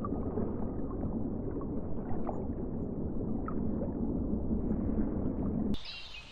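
Muffled underwater-sounding rumble with a few faint short whistles, typical of a dolphin recording played as the dolphin's sound; it cuts off abruptly near the end.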